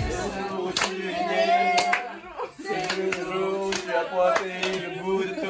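Several voices singing together, with rhythmic hand claps.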